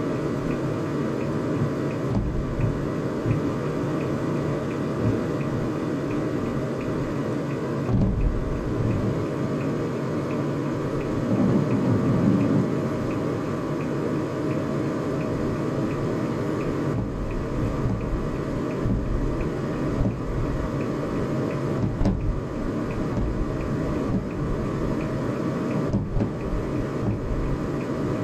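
Muffled booms of fireworks shells bursting, heard through a car's closed windows as scattered dull thumps over the steady low hum of the car idling.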